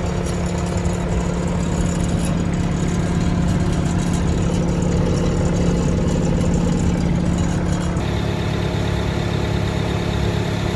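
Bobcat turbo diesel engine of a T66 tracked skid steer loader running steadily at idle, a little louder for a few seconds mid-way, with a sudden shift in its sound about eight seconds in.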